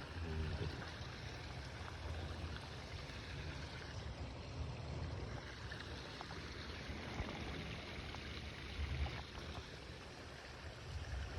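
Storm runoff from heavy rain flowing as a small stream and waterfall: a steady rush of water with a low rumble underneath.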